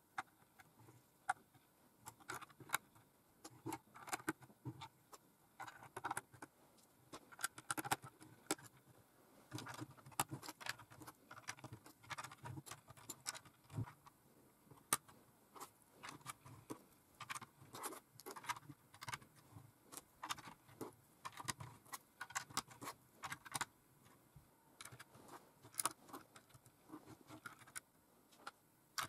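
LEGO plastic bricks and plates clicking and clacking as they are handled, fitted and pressed onto a model, in many irregular sharp clicks.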